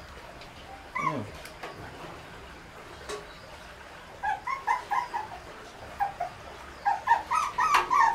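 Shih Tzu puppy whimpering: one falling whine about a second in, then from about four seconds a run of short, high yelps, several a second, coming thicker and louder toward the end.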